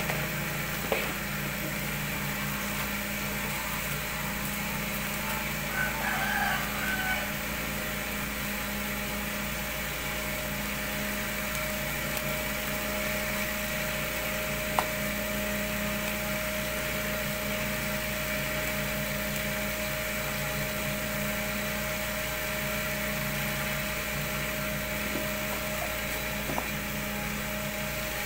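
Cotton candy machine running steadily as its spinning head turns out sugar floss: an even motor hum under a gas-burner hiss, with a few faint clicks.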